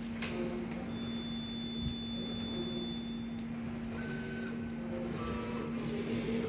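Laser cutting machine running with a steady hum, its motors giving short high tones of different pitches as the head makes small moves. Near the end a louder, higher whine sets in as the gantry drives the laser head across the bed.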